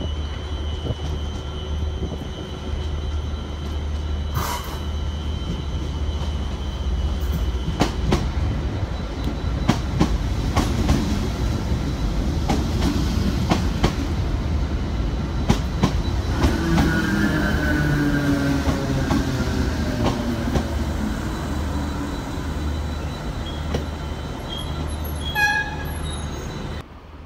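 Train running through a station and slowing: a steady rumble with scattered clicks from the wheels, and from about two-thirds of the way in a whine that falls in pitch as it brakes. A short quick run of high beeps near the end.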